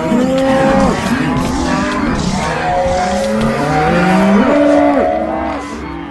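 Cartoon stomach-growling sound effects, many overlapping long pitched growls that swoop up and down, dipping a little in loudness near the end.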